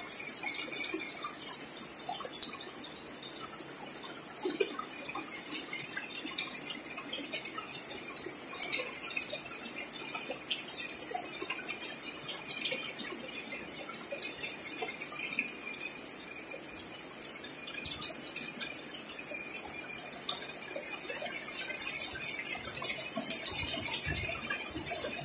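Heavy rain falling, a dense hiss of drops with many small hits on leaves and pots, swelling louder a little past the middle and again near the end.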